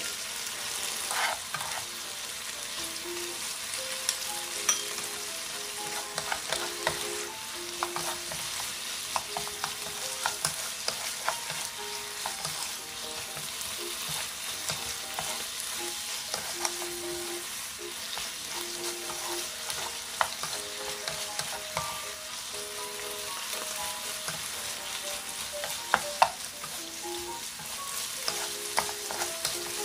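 Pork strips and green peppers sizzling in a hot frying pan while being stir-fried with two spatulas, the spatulas clicking and scraping against the pan now and then.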